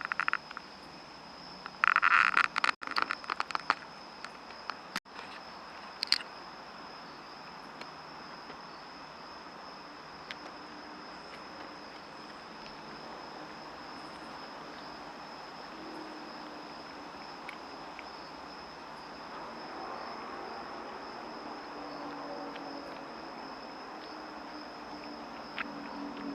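Insects chirring in one steady, high, even tone. About two to four seconds in, a short burst of loud clicks and rustling rises over it.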